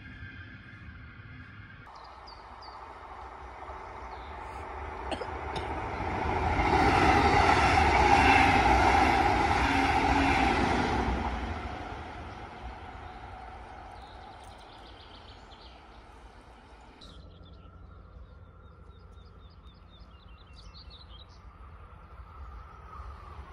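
A passing train: its noise swells over a few seconds, is loudest about seven to ten seconds in, and fades away by about twelve seconds. Afterwards birds chirp over a quiet background.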